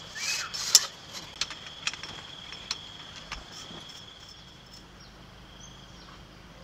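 A steady high-pitched insect trill, with a few sharp clicks and knocks in the first three seconds, the loudest just under a second in.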